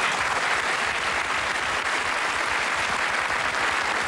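Studio audience applauding, steady clapping.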